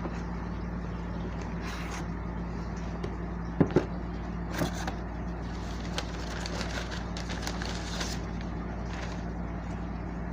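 Shipping box of live fish being opened and unpacked: a few sharp clicks and knocks about a third of the way in, and scattered scraping and rustling of packing, over a steady low hum.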